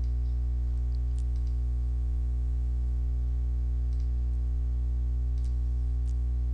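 Steady electrical mains hum with a buzz of overtones on the recording, with about five faint computer-mouse clicks spread through it.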